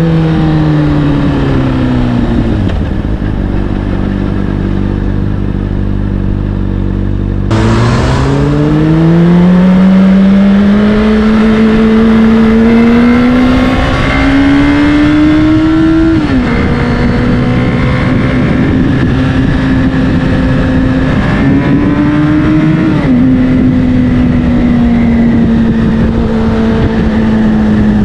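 Honda CBR600RR's inline-four through an Akrapovic exhaust: the revs fall as the bike slows, it idles for a few seconds, then pulls away with rising revs. An upshift comes about halfway through, then steady cruising, and a second upshift a few seconds later, with wind rush while moving.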